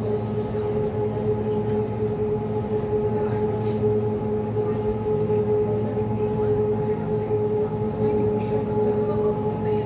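River bus's propulsion running steadily while under way, a constant drone with a held whine over a low hum, heard from inside the passenger cabin.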